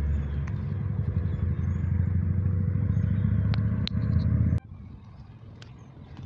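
An engine running steadily, a loud low rumble with a hum over it, that cuts off abruptly about four and a half seconds in and leaves a much quieter outdoor background.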